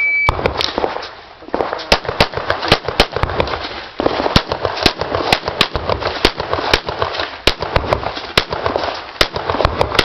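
A shot timer's short beep starts the stage. Then comes a run of rapid pistol fire, shots in quick pairs and strings, about two to three a second, with brief gaps as the shooter moves.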